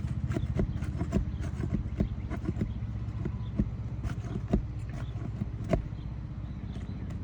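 Irregular clicks and taps of a hand tool working under a 3-tab asphalt shingle while releasing its nails, over a steady low hum; the loudest knocks come about a second in and near four and a half and six seconds.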